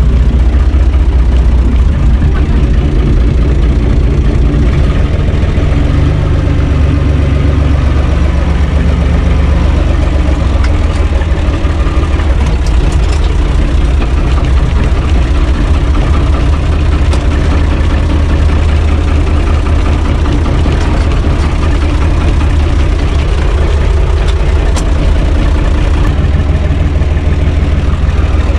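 UTB 445 tractor's four-cylinder diesel engine idling, heard from inside the cab.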